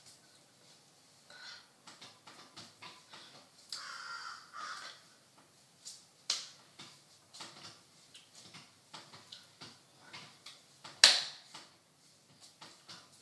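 Hands tapping, brushing and slapping together as a person signs: a string of soft taps and rubs, with a short rasping sound about four seconds in and one sharp smack about eleven seconds in.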